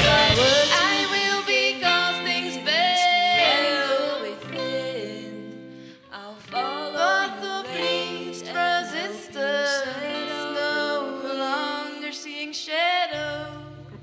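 Live garage-pop band playing: singing over guitar. A loud, dense opening thins into a sparser passage.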